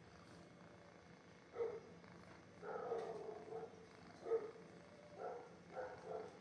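Male pigeon cooing in a series of low, repeated coos: a short one about a second and a half in, a longer one around the three-second mark, then several short ones.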